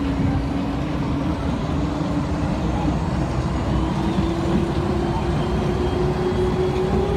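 Inside a DFW Skylink automated people-mover car: steady rumble of the train running, with a motor whine that climbs slowly in pitch from about halfway through as the train picks up speed.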